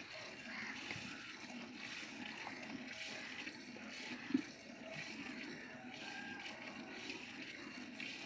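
Nili-Ravi buffalo being milked by hand, streams of milk splashing into a pail, with one sharp knock about four seconds in.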